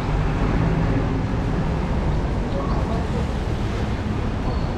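Steady city street noise in the rain: a constant rush of traffic and wet-road noise, with faint voices underneath.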